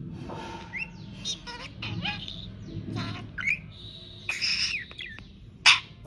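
Budgerigar warbling and chirping: a quick run of short rising and falling chirps, a held whistle about four seconds in, and one loud sharp chirp near the end.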